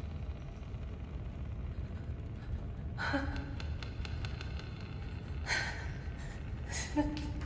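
A person gasping sharply three times, the first and last with a short catch of voice, over a low steady rumble.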